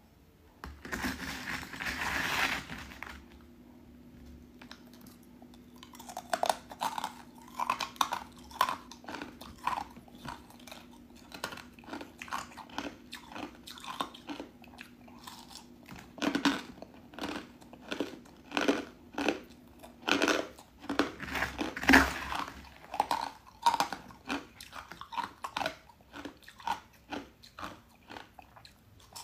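Thin flakes of ice coated in matcha powder being bitten and chewed close to the microphone: a fast run of crisp crunches and crackles, a few per second, with the loudest bites about two-thirds of the way through. A brief noisy hiss comes about a second in, and a faint steady low hum runs under the first two-thirds.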